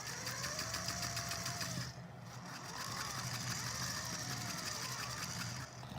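Sphero Bolt robotic ball driving fast, its small electric drive motors whirring, with the pitch rising and falling as it speeds up and slows. The whirring pauses briefly about two seconds in, then runs again.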